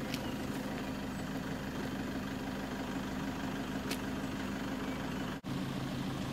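A vehicle engine idling steadily. The sound drops out for an instant about five seconds in.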